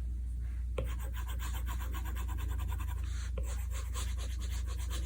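A stylus scratching quickly across a tablet's glass screen in rapid, even strokes, many a second, with a short break partway through. A steady low hum runs underneath.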